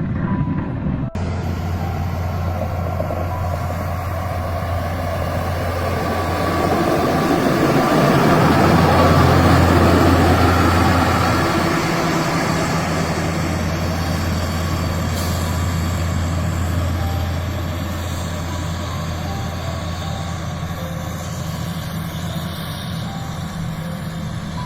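A heavy snow-clearing machine's engine running steadily with a low drone and a rushing noise over it; the sound changes abruptly about a second in, then swells louder for a few seconds in the middle before easing back.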